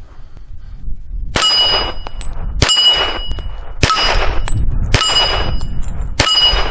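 Hi-Point .45 ACP pistol firing five shots about a second apart, each followed by the ring of a steel plate target being hit.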